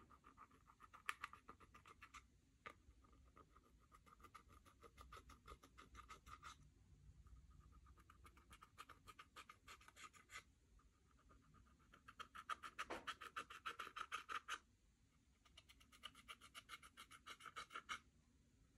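Slime being worked by hand, making faint runs of quick clicks and squelches, several a second, that stop and restart every few seconds.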